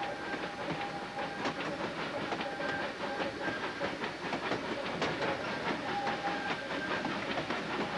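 A narrow-gauge steam freight train pulled by a Baldwin 10-wheeler, running near the top of a steep grade. A steady hiss is heard with irregular clicking of wheels over rail joints, and a thin high tone comes and goes.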